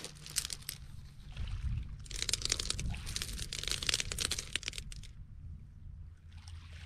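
Beach pebbles crunching and clacking as someone moves over them: a short burst near the start, then a longer run from about two to five seconds in, over a low steady rumble.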